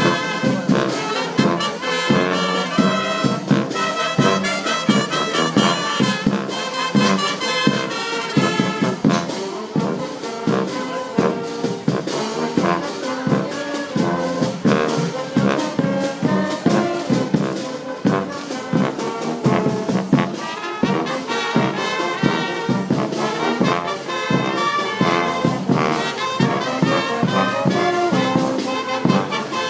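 Brass band playing a tune live, horns over a steady drum beat.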